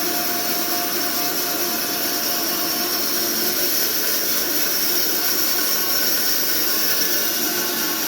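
Horizontal band sawmill running: a steady, loud machine noise with a constant whine.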